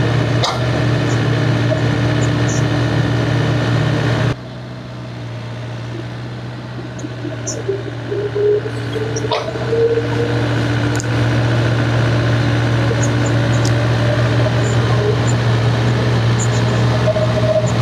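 Excavator's diesel engine running steadily, with scattered knocks. Its level drops sharply about four seconds in and builds back up over the next six seconds.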